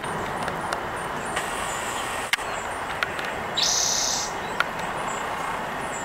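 Small songbirds giving short, high chirps again and again over a steady background hiss, with a few sharp clicks and a brief hissing burst about halfway through.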